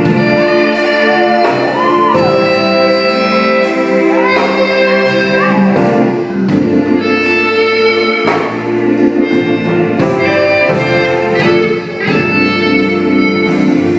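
Live gospel band playing the slow introduction to a song, with sustained chords and a melody line that bends in pitch over them.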